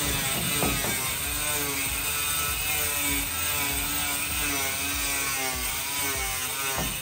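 Electric angle grinder cutting through a large sheet of board, the motor running steadily under load with its pitch wavering as the blade bites, then stopping right at the end.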